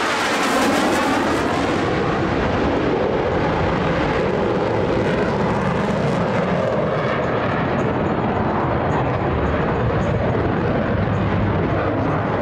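Boeing F/A-18 Super Hornet jets flying past in formation, their twin jet engines making a loud, steady noise. There is a sweeping whoosh as they pass closest, about half a second in.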